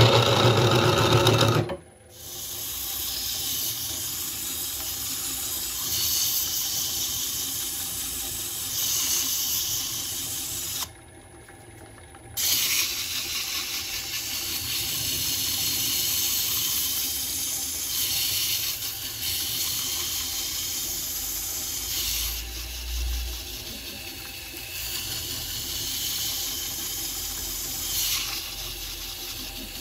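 A gouge cuts into a spinning birch goblet on a wood lathe for the first two seconds and stops abruptly. Then comes a steady hiss of the wood being hand-sanded on the inside as it turns, over the lathe's faint hum, with a short quieter break about eleven seconds in.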